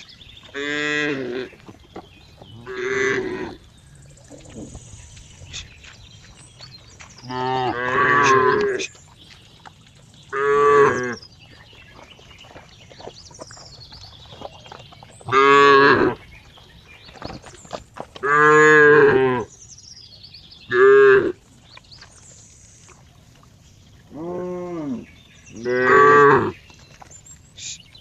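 A cow mooing over and over: about nine short calls, each a second or so long, a few seconds apart, some arching up and down in pitch.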